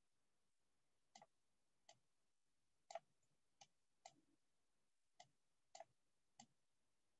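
Faint computer mouse clicks, about eight, irregularly spaced, over near silence, as a virtual compass is dragged and placed on screen.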